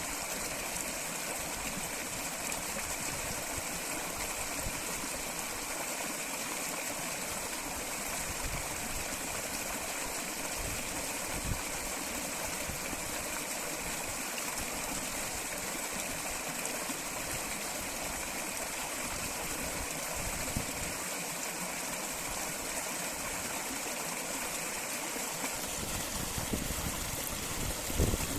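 Water flowing in a stream, a steady, even rushing with a few brief louder moments near the end.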